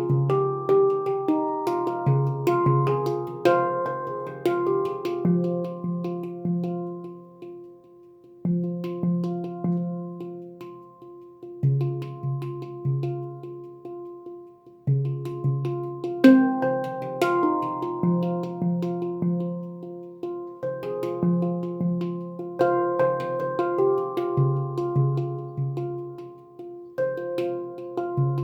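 Handpan in F Voyager scale by Leaf Sound Sculpture, played by hand in a slow melodic piece. Struck notes ring and overlap as a low note recurs under higher ones, with a brief lull about eight seconds in.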